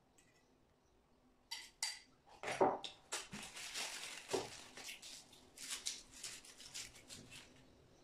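Small sweets packaging being opened and handled by hand: a few sharp clicks about a second and a half in, then a run of dense crinkling and crackling that stops shortly before the end.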